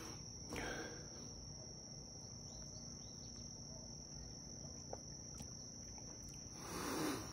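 Insects chirring outdoors in a steady high-pitched drone. Two soft breathy sounds rise over it, about half a second in and again near the end.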